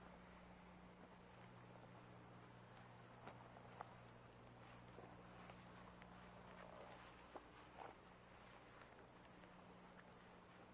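Near silence: a faint steady high hiss and low hum, with a few soft clicks.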